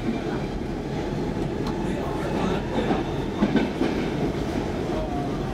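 Stockholm Metro C14 train running, heard from inside the carriage: a steady rumble of wheels on rail with a few faint clicks.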